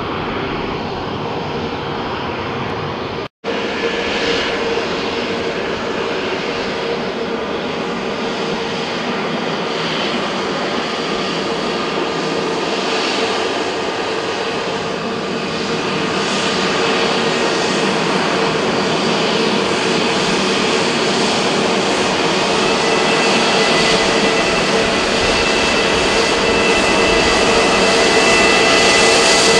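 Engine noise of a departing Airbus A320-family jet climbing away, cut off abruptly about three seconds in. Then the jet engines of an Airbus A320neo taxiing close by at low power: a steady hum that grows slowly louder, with a high whine coming in near the end.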